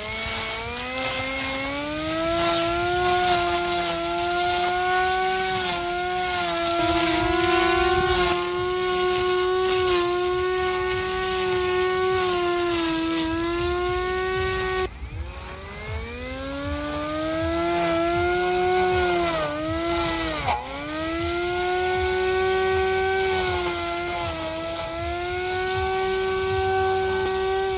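Cordless brushless grass trimmer motor spinning up and running with a steady high whine. About halfway through it drops and spins up again, and its pitch dips briefly two or three times a few seconds later.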